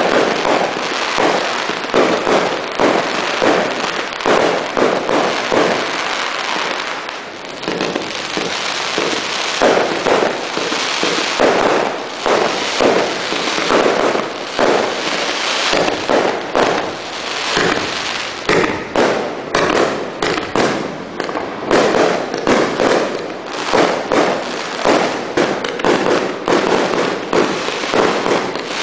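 338-shot fireworks cake firing continuously: shots and aerial breaks follow one another about once a second, with a dense crackle between them.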